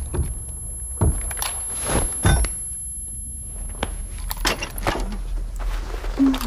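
Irregular knocks, clicks and rattles over a low steady rumble.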